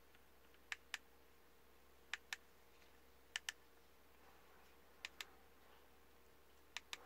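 Computer mouse buttons clicking in quick pairs, five double clicks spaced about one and a half seconds apart, over a faint steady hum.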